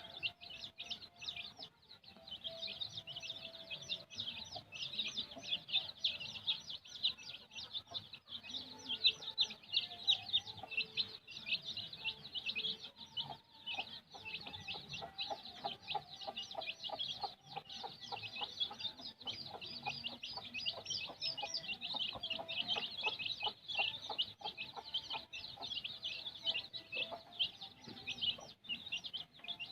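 A brood of kampung chicks peeping nonstop, many short, high, downward-sliding peeps overlapping in a steady stream.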